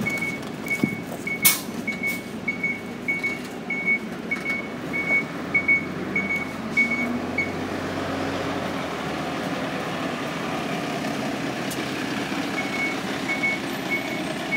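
A city bus's warning beeper, heard from inside the bus, sounding about twice a second; it stops about halfway through and starts again near the end. A sharp click comes about a second and a half in, over the hum of the idling engine.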